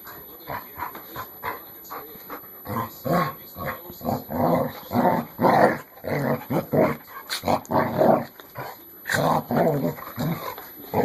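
Dogs growling at each other in play, in short growly bursts that start a few seconds in and come thick and fast through the middle.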